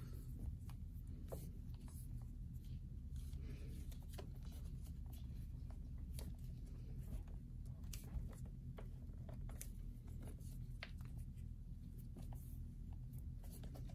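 Faint rustling and scattered light clicks of a leather lace being handled and pulled into a knot on a baseball glove's web, over a steady low hum.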